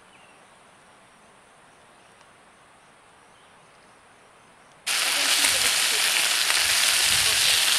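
Faint outdoor background for about five seconds. Then, with an abrupt start, bacon sizzles loudly as it fries in a skillet.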